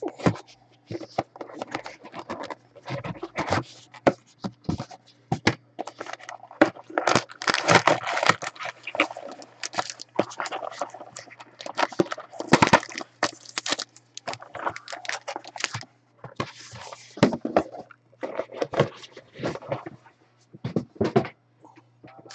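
Gold foil pack wrappers crinkling and tearing as trading card packs are handled and opened, with scattered scrapes and clicks from the cards and the box.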